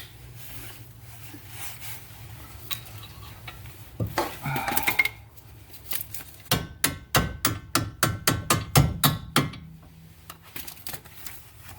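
A hammer strikes a punch to drive out a seized steel strut-to-knuckle bolt: a quick run of about sixteen ringing metal blows over some three seconds. A shorter metallic clatter comes a couple of seconds before the blows.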